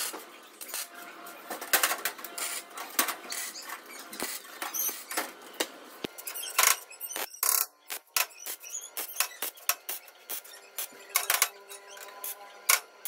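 MIG welder crackling and spitting in short, irregular bursts while tack-welding sheet steel, with brief gaps between welds.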